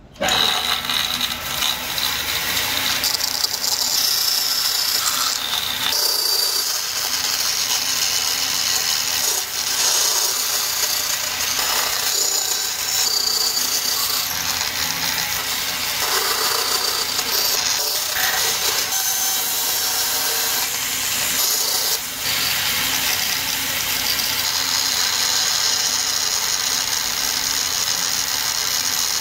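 Bandsaw running and cutting through a small plywood block, the blade sawing steadily as a curved axe-head pattern is fed through it. It starts suddenly at the very beginning.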